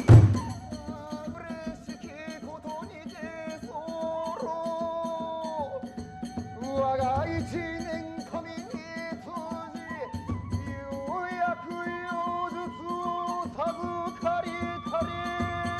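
Kagura accompaniment music: a wavering, sliding melodic line over soft steady drumming and light cymbal clicks, opening with one loud drum stroke.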